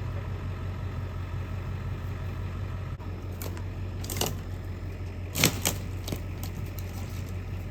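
A vehicle engine idling steadily, with several sharp knocks and clatters over it; the loudest knock comes about five and a half seconds in.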